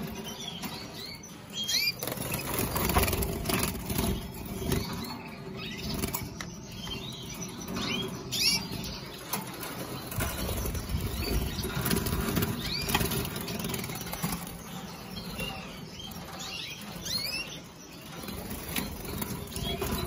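Caged canaries giving many short, high chirping calls and fluttering their wings, over a steady low hum.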